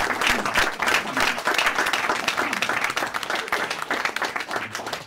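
Small audience applauding, many hands clapping at once, thinning out near the end.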